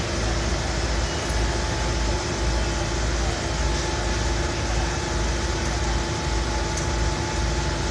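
Steady street noise with a constant low rumble and hum from an idling heavy engine.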